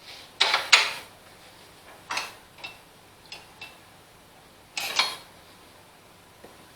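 Fuel tank being set down and seated in its mounting brackets on a lawn tractor's frame, making a series of knocks and clatters. There is a loud double knock about half a second in, lighter taps in the middle, and another loud knock about five seconds in.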